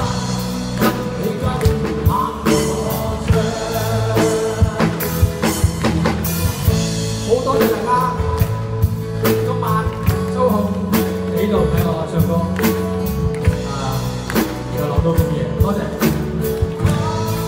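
Live performance of a Cantonese pop ballad: a male singer with acoustic guitar over a steady beat.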